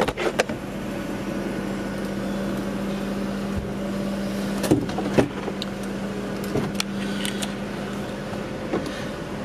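Mercedes-Benz CLK500's 5.5-litre V8 idling steadily, a constant hum, with a few light clicks and knocks near the start and around the middle.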